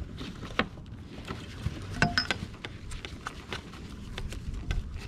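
Scattered small clicks and light knocks of hands unhooking a bluefish in a landing net aboard a kayak, over a low steady rumble, with a brief squeak about two seconds in.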